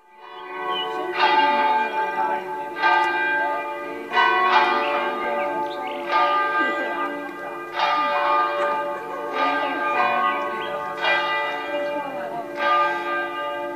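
Church bell tolling steadily, struck about every one and a half seconds, each stroke ringing on under the next.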